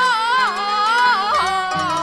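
Traditional Liyuan opera music: one long, wavering melody line with slow glides, held over plucked-string accompaniment.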